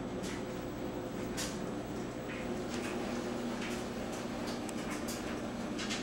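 Clothes dryer running: a steady low hum with scattered irregular clicks and knocks, the strange noises the dryer is making.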